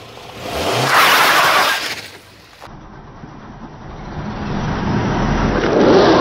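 A car's engine and tyres on wet asphalt as the wheel pulls off a pile of crushed M&M's. A loud burst of engine and tyre noise comes about a second in and stops suddenly; then the noise builds again from about four seconds as the wheel spins away.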